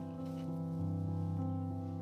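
Background instrumental music with piano, held notes changing every half second or so.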